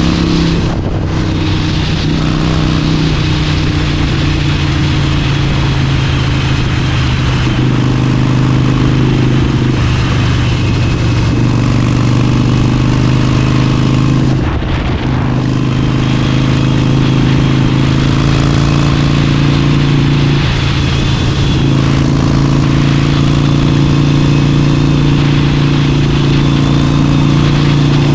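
Harley-Davidson Forty-Eight's air-cooled 1200 cc V-twin running steadily under way at road speed. The engine sound briefly eases off twice, about a second in and about halfway through.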